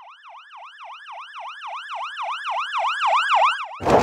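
Ambulance siren in its fast yelp mode, a wail sweeping up and down about four times a second and growing steadily louder. Near the end it is cut off by a sudden loud burst of noise.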